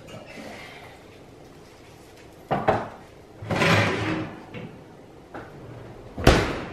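Oven door and baking pan being handled: a knock about two and a half seconds in, a longer scraping clatter a second later, and a sharp clunk near the end, the loudest of the three.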